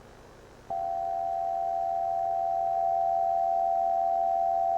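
A single steady electronic tone at one pitch starts abruptly about a second in and holds unchanged, over faint hiss.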